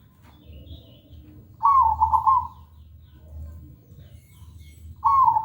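Zebra dove (perkutut) cooing: two song phrases, each a quick run of a few clear notes lasting under a second, one about a second and a half in and another starting near the end.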